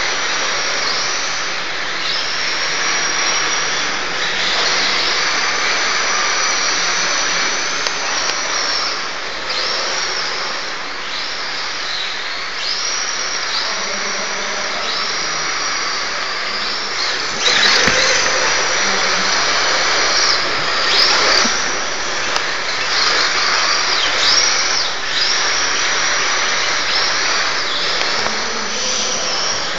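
RC drift car's small electric motor whining high, revving up and dropping off over and over with the throttle, over the hiss of tyres sliding on concrete. It grows louder for a moment a little past halfway.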